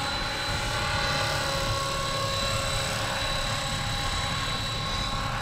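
Battery-electric radio-controlled scale model helicopter in flight: a steady high whine over the low noise of the spinning rotor, holding an even level.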